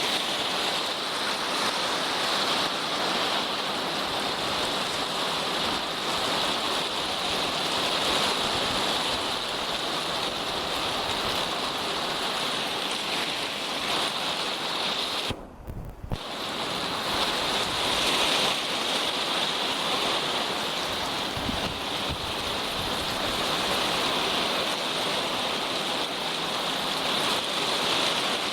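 Steady rain falling, an even hiss, that briefly drops out about halfway through.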